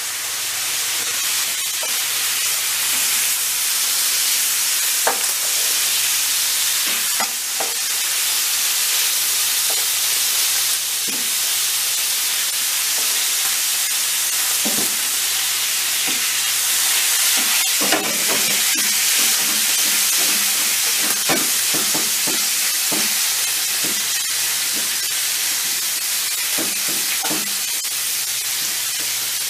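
Thin slices of beef sizzling in hot oil in a non-stick frying pan, stirred with a wooden spatula that scrapes and knocks against the pan now and then, more often in the second half.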